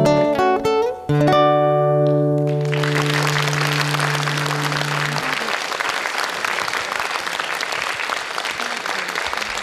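The closing bars of a song end on a held chord, and about two and a half seconds in an audience breaks into applause that continues steadily.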